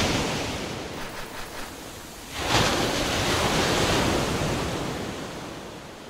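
Surf sound effect: a wave washing out, a few soft pulses, then a second wave breaking sharply about two and a half seconds in and slowly fading away.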